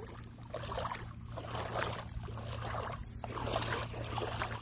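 Water lapping at the shoreline, swelling and fading unevenly, with a steady low hum underneath.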